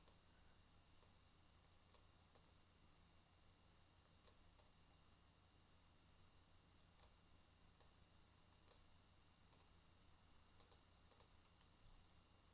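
Faint computer mouse clicks, a dozen or so at uneven intervals, over a faint steady hum of room tone.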